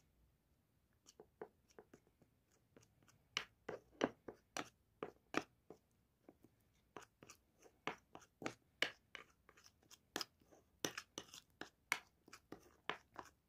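Metal spoon stirring chickpea flour into a paste in a ceramic bowl, clinking and scraping against the bowl about two or three times a second, starting about a second in.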